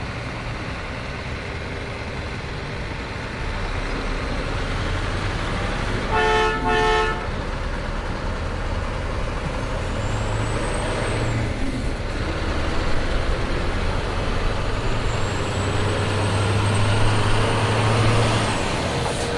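Steady engine-like vehicle noise, with a short horn toot about six seconds in.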